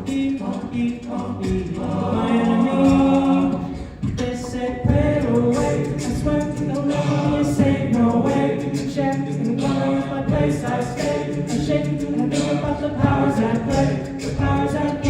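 An a cappella vocal group singing in layered harmony, voices only, with no instruments. Sustained chords run throughout, with a brief dip about four seconds in.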